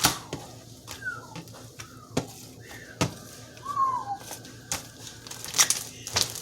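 Slime being squished and worked by hand, giving irregular sharp wet pops and clicks as air pockets burst, about ten of them, the loudest at the start and about five and a half seconds in.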